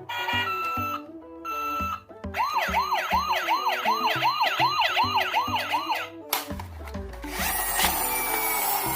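Toy emergency vehicle's electronic siren yelping in quick rising-and-falling wails, about three a second, for about four seconds. A harsh, noisy sound takes over near the end.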